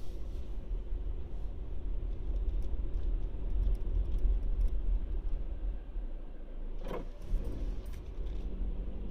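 Car driving slowly, heard from inside the cabin: a steady low engine and tyre rumble with small light rattles and jingles, and a brief clatter about seven seconds in.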